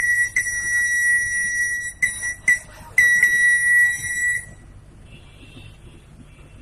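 Shrill whistle blown as a few quick toots, then a long blast, two more short toots and a second long blast, cutting off about two-thirds of the way through.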